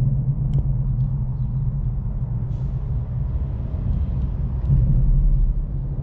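Steady low rumble of traffic on the bridge overhead, heard from underneath, swelling slightly near the end.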